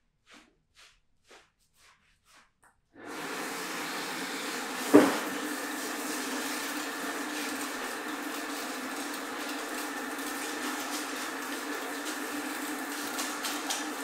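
Faint light taps about twice a second, then a steady whirring motor noise starts abruptly about three seconds in and runs on, with a single sharp knock about two seconds after it starts.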